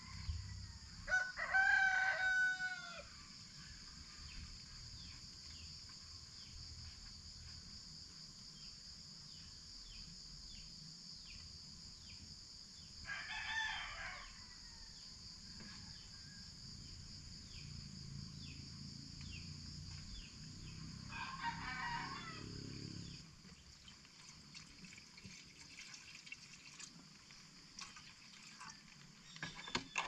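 Rooster crowing three times: once near the start, once about halfway through and once about two-thirds of the way through, each crow lasting about two seconds. A steady, high-pitched drone of insects runs underneath.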